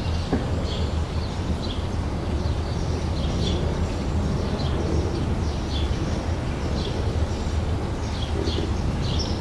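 Summer outdoor ambience: small birds chirping in short, quick calls, several a second, over a steady low rumble.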